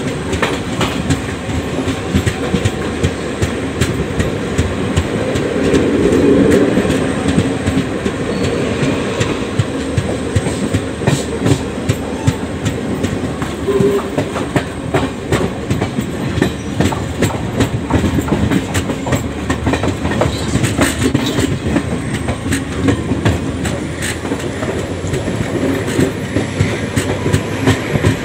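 Indian Railways express passenger train running at speed, heard from on board: a steady rolling noise of coach wheels on the track with frequent sharp clicks as the wheels pass over rail joints, swelling louder for a moment about six seconds in.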